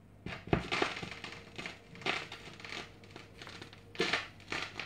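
Surface crackle and pops from a 45 rpm vinyl single's lead-in groove as the stylus rides it before the music starts: irregular sharp clicks, loudest about half a second in and again near four seconds, over a faint steady hum.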